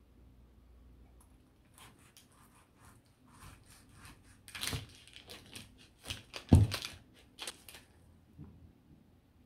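A knife sawing through a paper-wrapped sandwich, the wrapper crinkling and rustling in short strokes. One loud knock of the blade on a wooden board about two-thirds of the way through.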